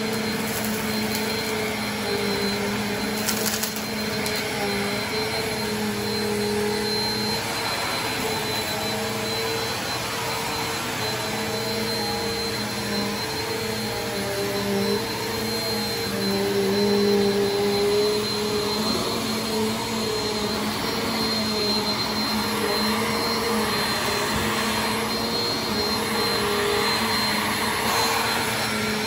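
Bagless upright vacuum cleaner running steadily with a motor hum and a thin high whine, its pitch wavering a little as it is pushed back and forth over carpet, sucking up confetti and sequins.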